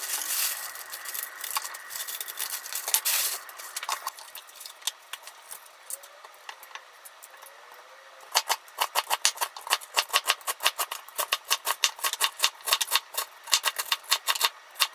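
Plastic bag crinkling and kitchen scissors snipping turnip greens, then, a little past halfway, a kitchen knife chopping turnip stems on a mango-wood cutting board in quick, even strokes, about five a second.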